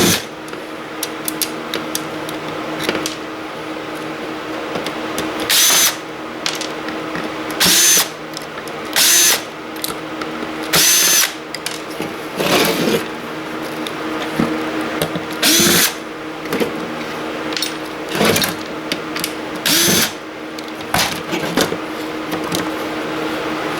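Power drill running in about six short bursts of a second or less, driving screws out of a server power supply board, over a steady low hum.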